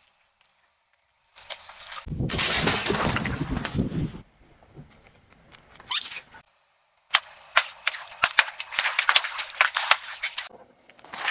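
Objects being crushed under a car tyre: a loud grinding crunch lasting about two seconds, a brief rising squeak, then a rapid run of sharp cracks and pops as something brittle breaks apart, in separate cut-together takes.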